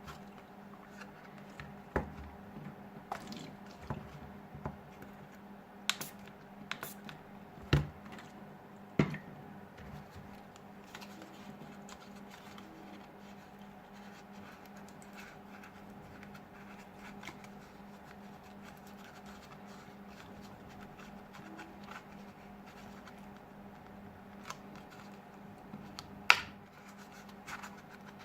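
Scattered sharp clicks, taps and light scratches of hands and small tools handling an opened smartphone during repair, the sharpest clicks about 2, 8, 9 and 26 seconds in, over a faint steady hum.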